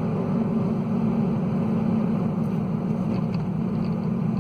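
Kia Forte Koup's tires making a loud, steady low hum while driving at about 30 mph. The tires are cupped on the inside edge of the tread and dry-rotted, which the owner puts down to a suspension and steering alignment problem.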